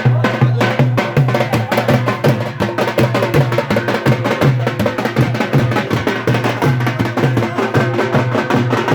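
Drum-heavy music: rapid percussion strokes over a deep beat that comes about twice a second, with a melody line running through.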